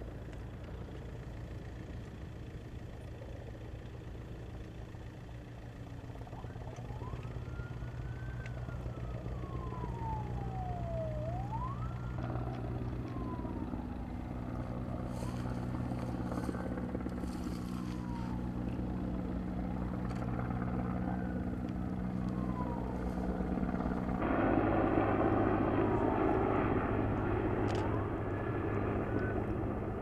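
An emergency vehicle's siren wailing, slowly rising and falling, over a steady low engine drone. A louder rushing noise joins about two-thirds of the way through.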